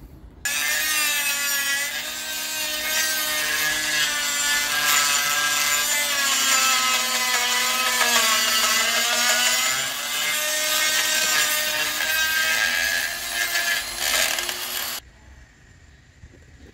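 Makita die grinder with a pink abrasive stone running against the inside of a Honda Bros 150's rear brake drum as the wheel turns, grinding away the worn drum's lip so oversize brake shoes will fit. The motor's whine with the grinding hiss starts about half a second in, sinks in pitch toward the middle and rises again, then cuts off suddenly near the end.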